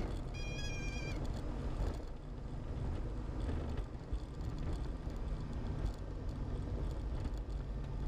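Cockpit noise of a Diamond DA40 just after landing: a steady low rumble from the engine at low power. A high warning tone sounds briefly and stops about a second in.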